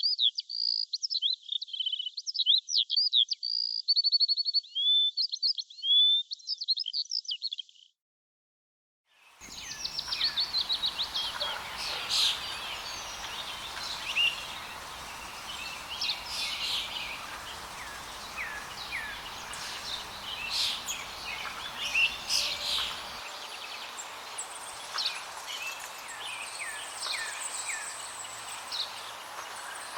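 House sparrows chirping: first a clean recording of rapid chirps and short trills that stops about eight seconds in, then, after a short gap, a noisier recording of many sparrows chirping over each other against a steady background hiss.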